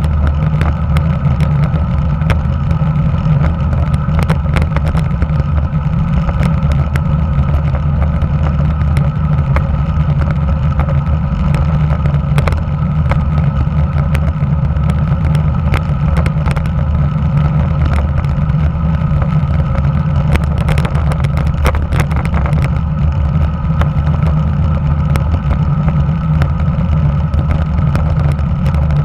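Riding noise picked up by a handlebar-mounted camera on a Giant TCR road bike at speed: steady wind rush and tyre rumble on asphalt, with frequent small clicks and rattles from road vibration.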